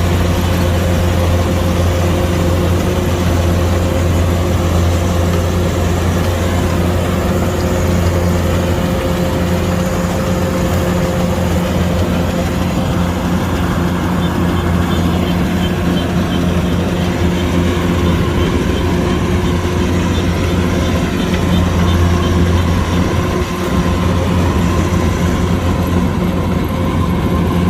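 Kubota DC105X combine harvester's diesel engine running steadily at a constant speed, with a brief dip in level about three-quarters through.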